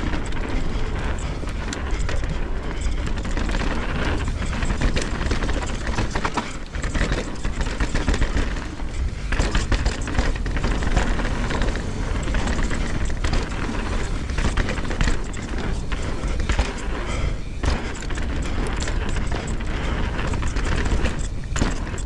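Mountain bike riding fast down a dirt trail, heard from a GoPro mounted on the rider or bike: steady wind rumble on the microphone, with tyres on dirt and the bike rattling and knocking over bumps.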